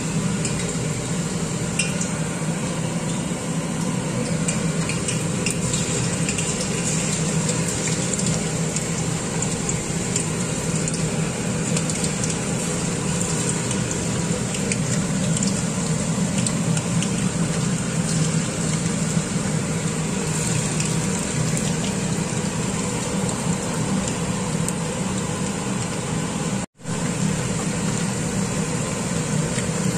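Battered chicken pieces deep-frying in hot oil: a steady, dense sizzle with constant fine crackling. It cuts out for an instant about three seconds before the end.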